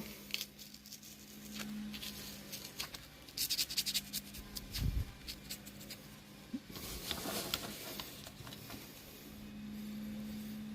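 Faint scratching and rubbing as a wooden barbecue skewer is worked into a piece of melamine foam sponge, in two short bouts, over a low steady hum.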